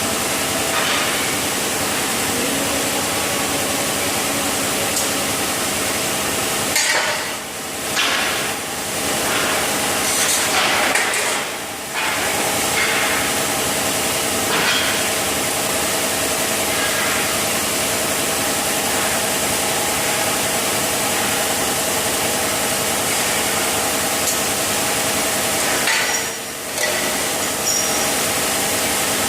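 Steady hissing buzz of a TIG welding arc in a workshop, broken by short pauses about 7, 12 and 26 seconds in.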